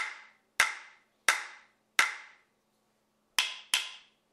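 Sharp percussive clacks in a slow, even rhythm: four about two-thirds of a second apart, then a quick pair near the end, each dying away in about half a second.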